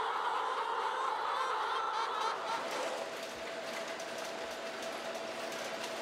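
A shed full of laying hens clucking and chattering together. About halfway through, a steady machine hum with fast, light clicking joins in.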